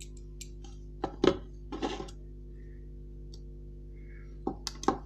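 Small hand tools clicking and scraping against a diecast model car body while a plastic light lens is pushed out. There is one loud knock about a second in, a short scrape just after, and a quick cluster of clicks near the end, over a steady low electrical hum.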